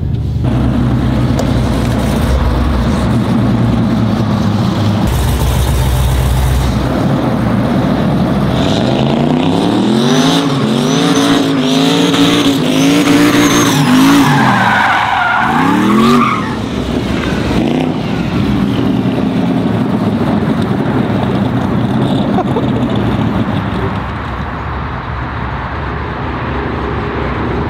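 Pickup truck doing donuts: the engine revs up and down over and over while the tires squeal and skid on the pavement.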